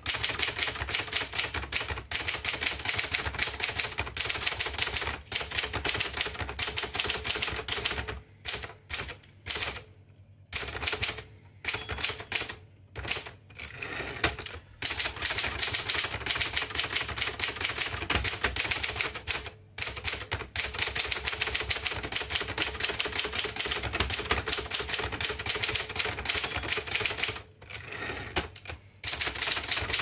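Fast typing on a 1958 Adler Special manual typewriter: a rapid run of type bars clacking onto the paper, in long bursts broken by a few brief pauses.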